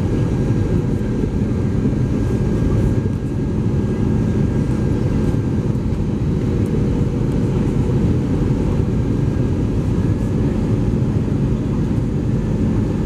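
Steady low rumble of an Airbus A320 in flight, its engines and the rushing air heard from inside the passenger cabin, with a faint high whine that comes and goes.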